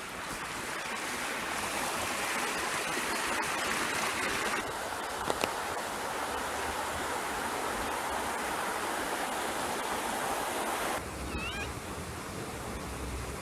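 Steady hiss of rain falling on wet paving and foliage, with water running. It cuts off abruptly near the end, where a quieter stretch holds two short rising-and-falling chirping calls.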